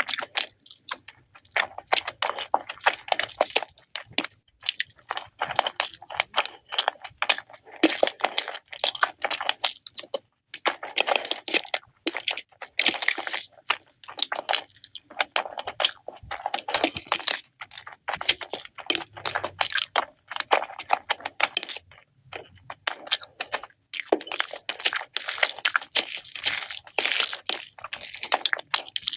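Close-up crunching and chewing of crispy fried chicken lollipops, in runs of crackly bites separated by short pauses.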